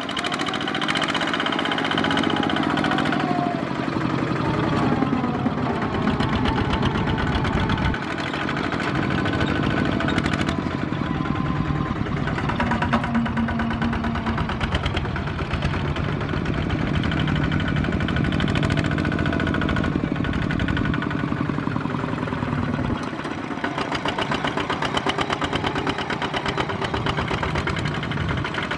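Kubota single-cylinder diesel engines of two-wheel tractors running under load while hauling trailers of rice sacks: a rapid, knocking diesel chug, with engine speed rising and falling as they drive past.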